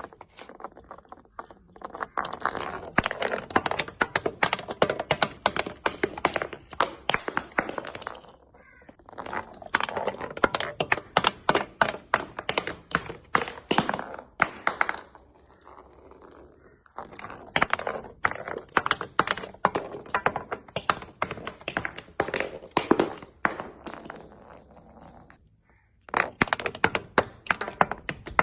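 Crunchy objects being crushed: dense crackling and snapping in four bursts of several seconds each, with short quieter gaps between them.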